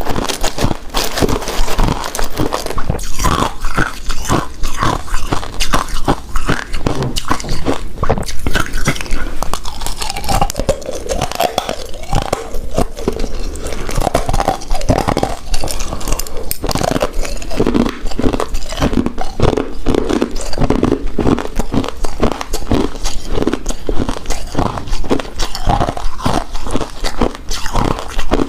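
Close-miked chewing of a soft, chewy coconut-coated rice cake: a continuous run of small clicking mouth sounds.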